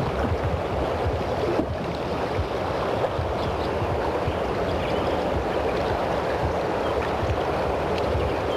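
Steady rushing of river current, with a low, unsteady rumble of wind on the microphone.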